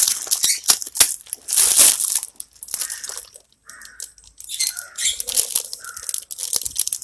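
Thin plastic bag crinkling and rustling in the hands as it is opened and dipped into a bucket of water. The crinkling is loudest in the first couple of seconds, then softer and patchier.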